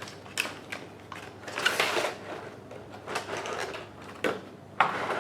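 Box contents being handled and unpacked by hand: rustling of paper and packaging with a few small knocks and clicks.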